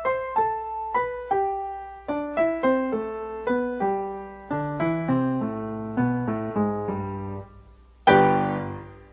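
Piano music: a run of struck notes stepping down in pitch, then a loud chord about eight seconds in that rings out and fades.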